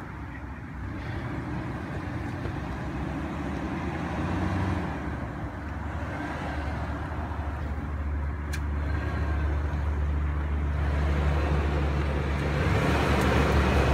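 2002 Toyota 4Runner's 3.4-litre V6 engine running at low revs as the SUV crawls up a rocky dirt trail, growing steadily louder as it comes close, with its tyres rolling over loose gravel. A single sharp click about eight and a half seconds in.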